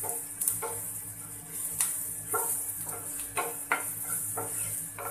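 Wooden spatula scraping and tossing vegetables around a nonstick frying pan during stir-frying, a dozen or so quick, irregular strokes over a steady hiss.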